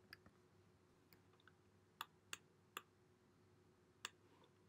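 Faint computer mouse clicks, about six at irregular intervals, over near silence.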